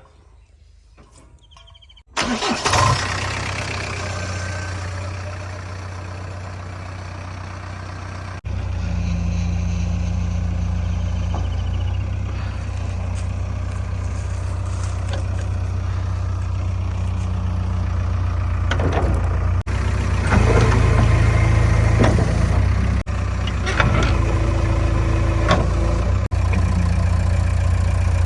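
Heavy diesel engine of a backhoe loader or tractor running steadily, starting about two seconds in after a quiet opening. The sound changes abruptly a few times, with the engine note shifting in pitch and loudness.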